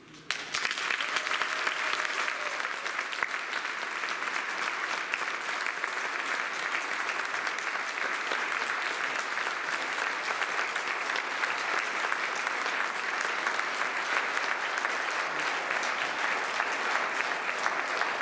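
Congregation applauding: many people clapping in a dense, steady patter that starts about half a second in and keeps on without letting up.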